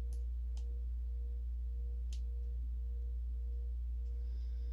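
Steady low electrical hum with a thin, higher steady tone over it. A few faint clicks come through in the first couple of seconds.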